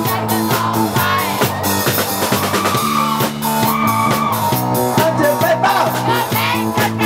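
Rock music with singing and drums.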